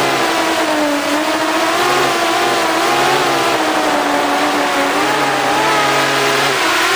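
FPV racing drone's electric motors and propellers whining in flight, several pitches wavering up and down with the throttle, over a steady rush of wind noise.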